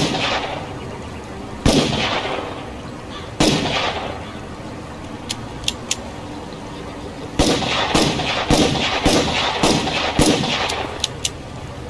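Revolver gunshots with an echoing tail. First come three single shots under two seconds apart, then a few sharp clicks. Then six shots in quick succession about half a second apart, followed by a few more clicks.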